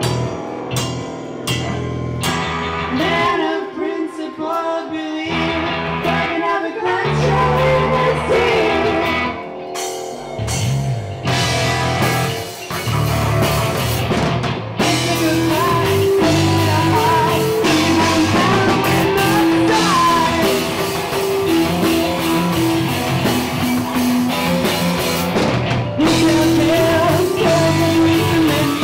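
Live rock band playing: electric guitar, keyboard and drum kit, with a voice singing. The first half is sparse and stop-start with short breaks, and from about halfway the full band plays steadily.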